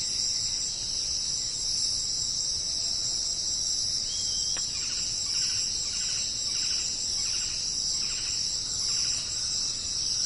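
A steady, high-pitched insect chorus drones throughout. From about halfway, a fainter, lower pulsing call repeats roughly every 0.7 s.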